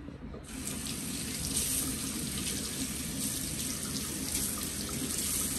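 Tap turned on about half a second in, water running steadily into a sink.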